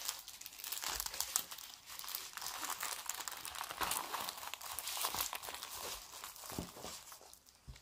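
A sheet of paper and a diamond painting canvas in its plastic sleeve crinkling and rustling as they are rolled up together by hand, with irregular crackles that die down near the end.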